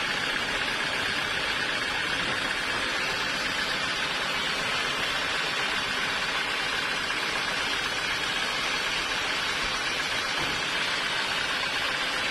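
Sawmill machinery running steadily, a continuous even rushing noise with a faint steady whine that does not change.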